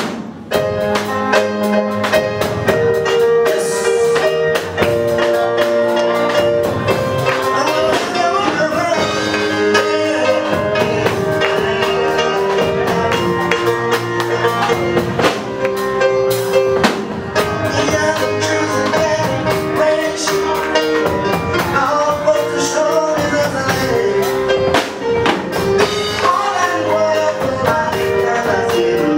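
Church choir singing a gospel song over a live band, with drum kit and keyboard keeping a steady beat.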